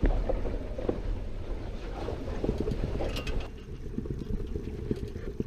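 Wind buffeting the microphone over water rushing and splashing along the hull of a Hunter 22 sailboat under sail. About three and a half seconds in, the sound cuts abruptly to a duller low rumble.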